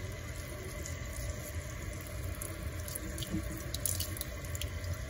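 Kitchen faucet running a steady thin stream of water into a sink, splashing onto a towel held under it.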